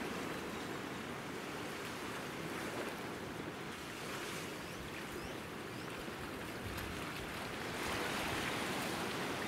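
Gentle sea waves washing at a shoreline: a soft, steady rush of water that swells slightly near the end.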